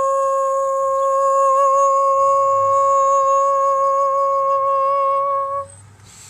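A woman's voice holding one long, steady sung note, wavering slightly a little over a second in, and stopping about five and a half seconds in.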